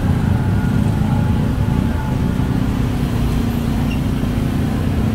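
Steady traffic noise of a busy city street: engines of passing vehicles making a continuous low rumble.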